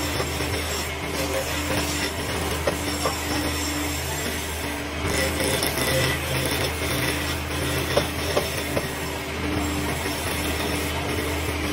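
Wood lathe running with a steady motor hum while a tool scrapes against the spinning wood, with a few short clicks.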